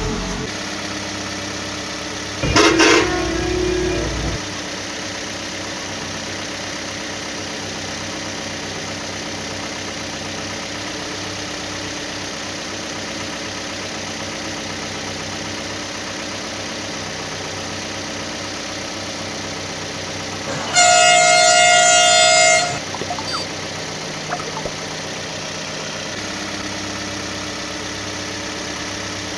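A steady engine-like drone, with a vehicle horn sounding once, held for about two seconds, about two-thirds of the way in. A shorter, louder burst comes a few seconds after the start.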